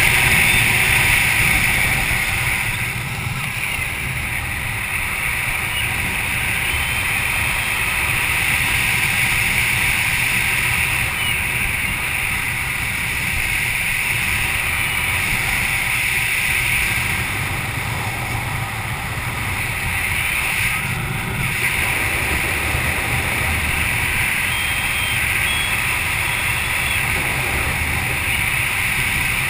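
Wind rushing over an action camera's microphone during flight under an open parachute canopy: a steady rushing noise that eases a little about three seconds in and again past halfway.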